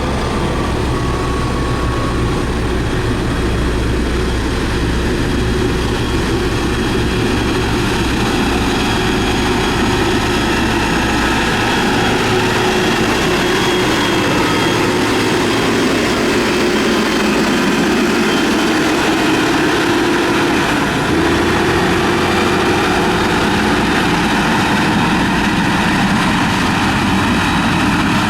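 Heavy diesel road-building machinery (motor grader and road rollers) running steadily with a low engine drone. The deepest rumble drops away about 11 seconds in and comes back about 21 seconds in.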